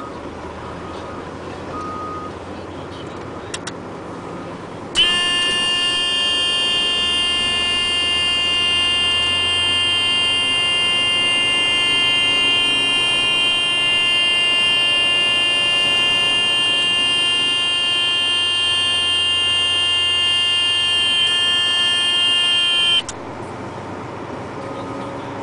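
A loud, buzzy tone at one steady pitch switches on suddenly about five seconds in, holds for about eighteen seconds and cuts off sharply, like a held warning horn or buzzer. A low engine hum runs underneath throughout.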